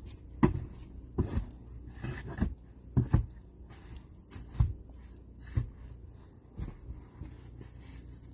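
A series of short, irregular thumps and scrapes, roughly one a second, with the loudest near the start and about halfway through.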